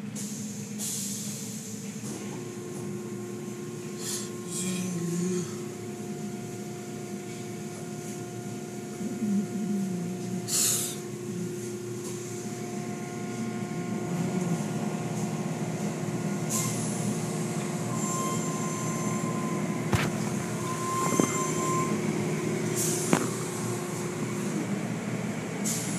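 An automatic tunnel car wash heard from inside the car. Its machinery runs with a steady hum and several steady whining tones, under surges of water spray and brushing on the car, the loudest about ten seconds in. A few sharp knocks come near the end.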